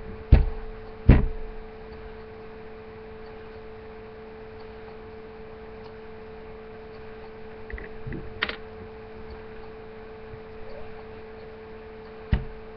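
Steady electrical hum from the webcam recording, broken by sharp thumps: two within the first second or so, one about eight and a half seconds in, and one near the end.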